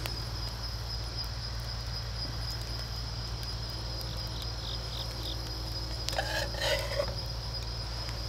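Crickets trilling steadily in a high, even tone, with a few faint short chirps about four seconds in. About six seconds in, a brief louder sound lasting under a second stands out over them.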